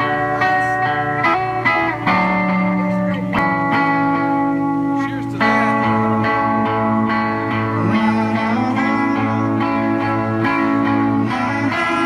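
Solo electric guitar played live and amplified: ringing, sustained chords that change every second or two.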